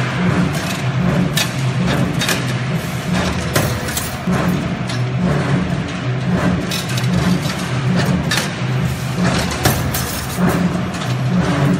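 CNC rebar stirrup bending machine running. Its motor hum shifts back and forth in pitch, and the steel bar makes repeated sharp clicks and clanks as it is fed, bent and cut.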